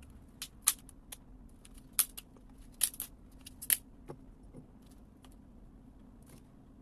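Celery stalks being pulled and snapped apart by hand: a string of sharp, crisp snaps and clicks, bunched in the first four seconds with one more faint one later, over a faint steady hum.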